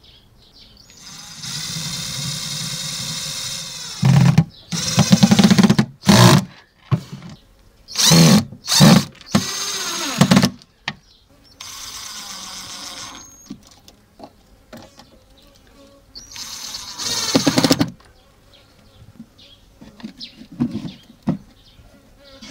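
A small motor whining in stop-start runs: one steady run of about three seconds, then several short loud spurts, with two more runs later on.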